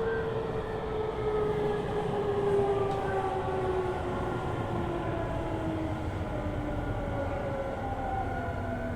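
Tokyu 5000 series train's Hitachi IGBT-VVVF inverter and traction motors whining over the rumble of the wheels, with several tones falling slowly and steadily in pitch as the train slows. A new higher tone comes in near the end.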